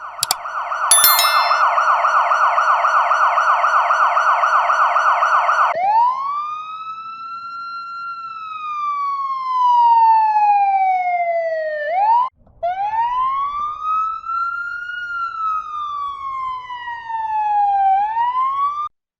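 Emergency vehicle siren: about six seconds of a fast yelp with faint steady high tones over it, then two slow wail cycles. Each wail rises for about two seconds and falls for about four, with a brief cut between them.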